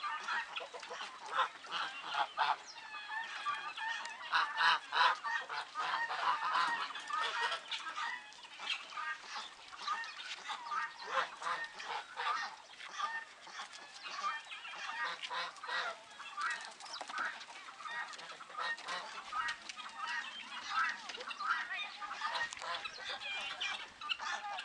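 A flock of farm poultry calling over and over with many short, overlapping calls as they eat fresh grass they have been given.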